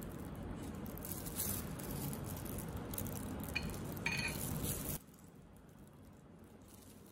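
Faint, light clinks of a steel cleaver blade against a ceramic plate as sliced chicken is slid off it, over a low handling hush; it drops to near silence about five seconds in.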